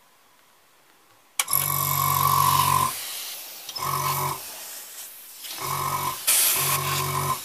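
Sparmax TC-501H airbrush compressor's motor starting suddenly about a second and a half in, running with a steady low hum and air hiss. It cuts out and starts again several times in short runs.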